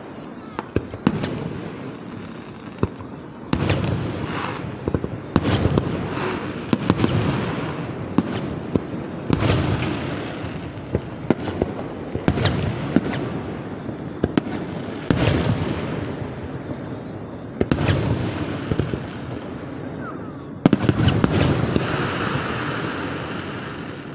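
Aerial fireworks display: shells bursting one after another every second or two, each sharp bang trailing off in a rumbling echo, with the heaviest bursts near the start and about three-quarters of the way through.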